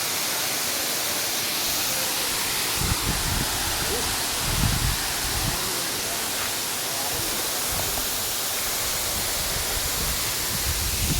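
Steady rush of falling water, with a few brief low rumbles of wind or handling on the microphone: about three seconds in, around five seconds, and near the end.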